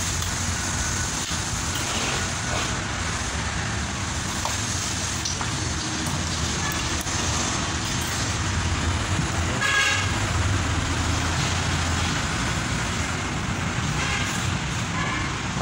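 Steady motor-vehicle engine and traffic noise with a low hum, and a short horn-like toot about ten seconds in.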